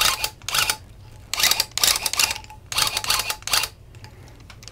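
Loop pile tufting gun firing in three short bursts, each under a second, as it punches continuous yarn through the carpet backing in rapid clattering strokes.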